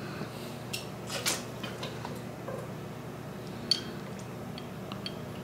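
A handful of light clicks and clinks, spread over a few seconds, the sharpest about three and a half seconds in, over a steady low hum.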